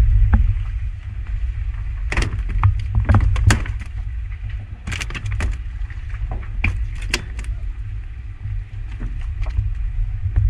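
Sharp knocks and thumps on a boat's deck as a freshly landed skipjack tuna is handled, in clusters with short gaps between, over a steady low rumble of the boat.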